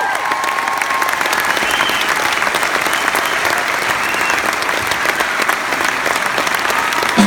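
Theatre audience applauding steadily at a curtain call, a dense even clapping, with music starting in just at the end.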